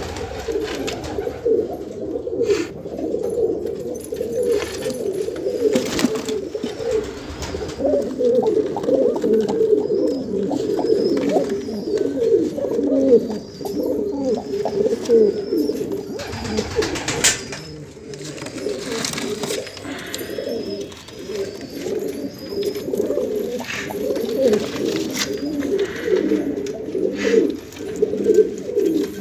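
Bajera pigeons cooing without a break, low overlapping coos rising and falling, with a few brief rustles or knocks now and then.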